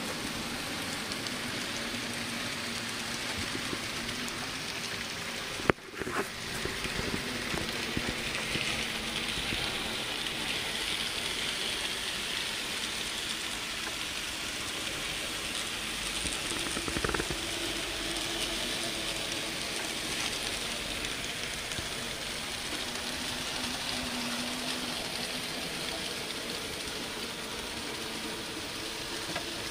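Z scale model diesel locomotives (Micro-Trains Line / American Z Line) running a freight train around the layout: a steady faint hiss of tiny motors and wheels on the rails, with a low steady hum underneath. A sharp click about six seconds in and a soft knock a little past halfway.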